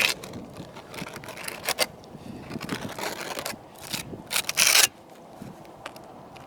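Trowel scraping and spreading roofing mastic over a flat roof, in a series of uneven scraping strokes, the longest and loudest about four and a half seconds in.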